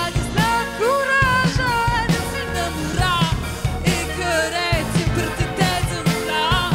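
A live song: a woman singing into a microphone, her voice gliding and bending between notes, over a full backing with a steady beat and a heavy low bass.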